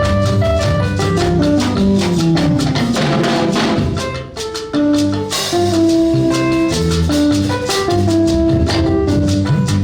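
Instrumental music with drums and a steady beat, dipping briefly about four seconds in before carrying on.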